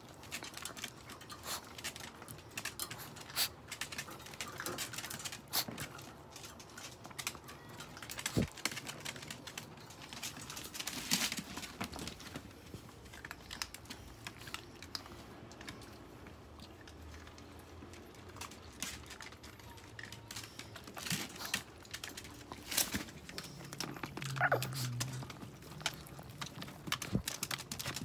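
Long-haired Chihuahuas moving about and licking close to the microphone in a wire pen make a run of irregular clicks, scratches and rustles. A short pitched dog sound comes near the end.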